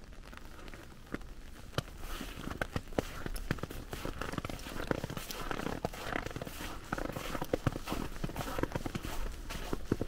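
Footsteps crunching through snow, starting about two seconds in as a fast, irregular run of crisp crunches.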